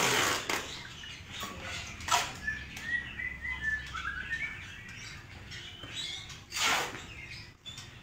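Caged songbirds chirping, with a string of short chirps a few seconds in, over bursts of rustling as a bird's shipping box is taped shut with packing tape.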